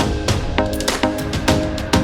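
Background music with a steady drum beat and synth notes.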